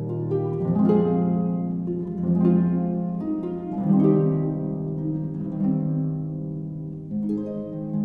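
Slow instrumental background music, with a new note or chord entering about every second and a half.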